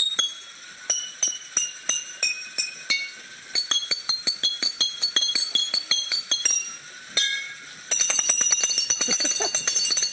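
Small tuned chimes struck one after another, each note ringing briefly, in runs that step down in pitch like a scale. Near the end comes a fast, dense run of strikes.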